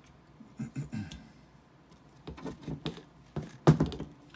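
Metal clicks and scrapes of a hex key working the set screws in a metal lightsaber hilt's blade holder, in small clusters, with one louder knock near the end.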